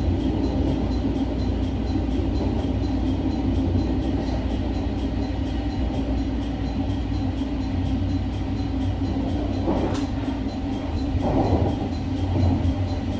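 JR Shikoku 8600 series electric train giving a steady low hum. Faint even ticking runs about three times a second, with a sharp click about ten seconds in.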